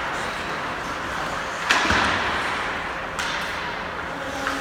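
Ice hockey play: a sharp crack of stick or puck about a second and a half in, the loudest sound, and a lighter crack about three seconds in, over steady rink noise of skates on the ice.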